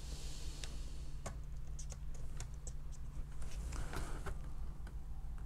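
Light, irregular clicks and taps of hands handling the plastic casing and side panels of a folding dual-screen portable laptop monitor, with a steady low hum underneath.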